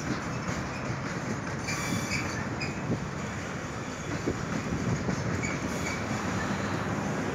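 Freight train's covered boxcars rolling slowly through a curve: a steady rumble of steel wheels on rail, with a few brief wheel squeals and a couple of sharp knocks about three and four seconds in.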